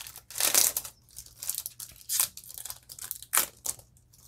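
Foil wrapper of a Yu-Gi-Oh booster pack being torn open by hand and crinkled, in several short crackling rips with brief pauses between them.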